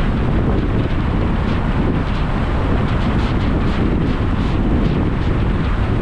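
Steady road and wind noise from a vehicle driving at speed, with wind rushing over the microphone.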